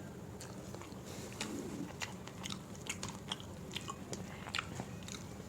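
Close-miked eating: a person chewing and smacking soft food with quick wet clicks of lips and tongue, over a steady low hum.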